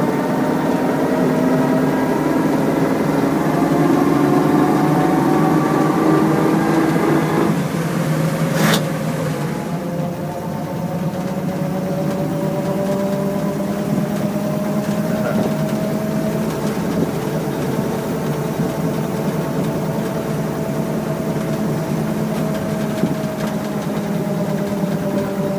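1928 Graham Brothers delivery truck's engine running steadily as the truck drives along. About eight seconds in the engine note drops and there is a single sharp click; after that a thin whine rises slowly and then falls back.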